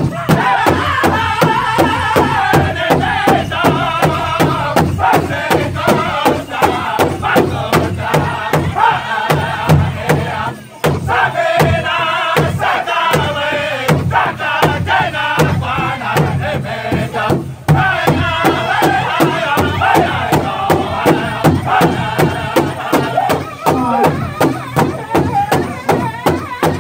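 Powwow drum group: several men beating a large shared hide drum with padded sticks in a steady, even beat while singing together in high voices. The singing dips briefly twice and comes back in over the drumbeat.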